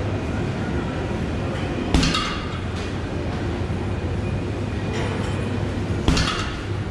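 Two punches from a Fortress boxing glove land on a heavy bag about four seconds apart, each a sharp hit followed by a short rattle, over a steady low rumble.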